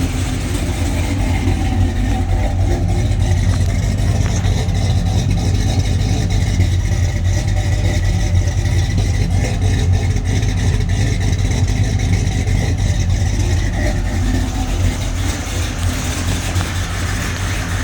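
Supercharged LSA 6.2-litre V8 in a box Chevy, exhausting through long-tube headers, running at a steady idle with an even, deep exhaust pulse.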